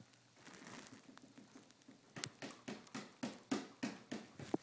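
Quick series of sharp taps and clicks from hands working a home printer's casing and power button, about four a second, starting about two seconds in.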